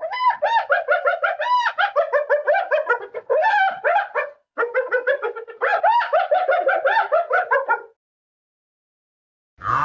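An animal giving a rapid series of short, high-pitched calls, several a second, in two runs with a brief break about four and a half seconds in.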